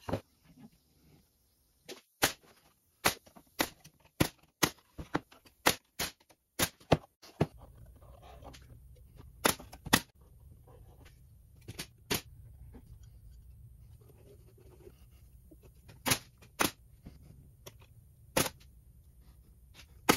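Bostitch pneumatic nailer firing nails into wood: sharp shots in a quick run of about two a second, then single shots a few seconds apart. A low steady hum comes in about a third of the way through.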